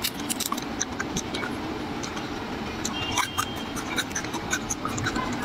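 Dry papery garlic skins crackling as raw cloves are peeled by hand: many small crisp clicks and rustles over a steady background hiss.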